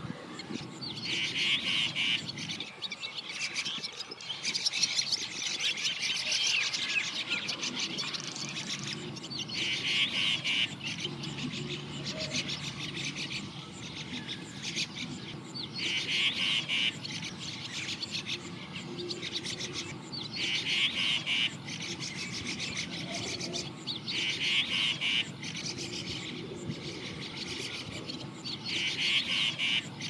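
Small birds chirping and twittering, with a rapidly pulsed call of about a second that comes back every few seconds, six times in all.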